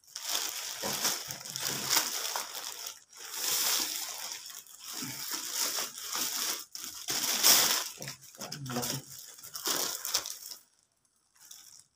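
Plastic packaging bags and paper wrapping crinkling and rustling as a parcel is unwrapped by hand, in irregular bursts with short pauses, stopping near the end.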